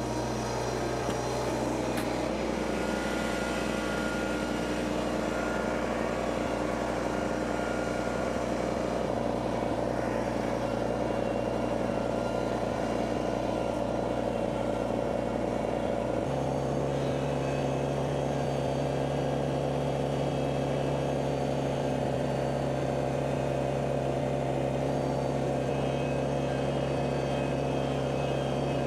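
Compact tractor's diesel engine running steadily, its engine note shifting about two seconds in and again about sixteen seconds in.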